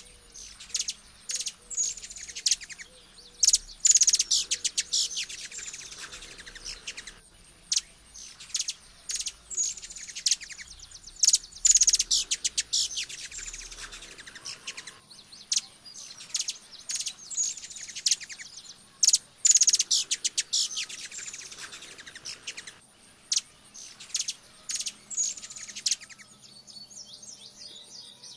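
Hummingbird calling: rapid, high, sharp chips and short downward twitters in bursts about every second. A louder stuttering run of chips comes back about every eight seconds, and the calls thin out near the end.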